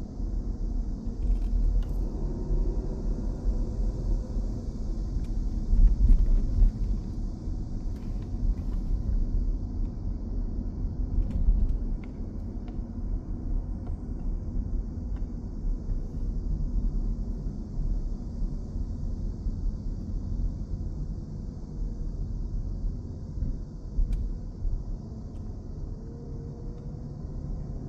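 Low, uneven outdoor rumble, with a steady high hiss running through it and a few faint clicks.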